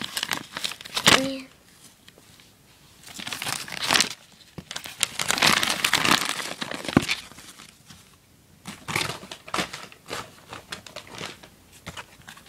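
Paper wrapping on a present crinkling and tearing as it is unwrapped by hand, in several spells of a second or two with short pauses between.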